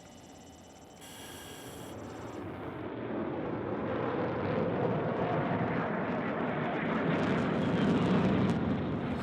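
Jet fighter noise, an F-35C, swelling over several seconds and loudest near the end. A brief electronic tone sounds about a second in.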